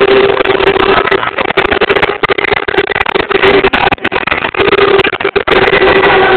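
Loud, overloaded street din from a dense celebrating crowd, with a steady droning tone that breaks off and resumes several times.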